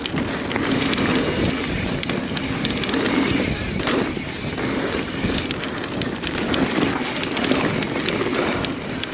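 Mountain bike ridden fast down a dirt trail: wind rushing over the microphone, with the tyres on dirt and many small rattles and clicks from the bike over the bumps.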